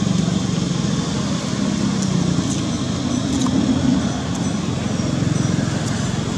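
Steady road traffic noise: the low rumble of vehicle engines and tyres passing on the road.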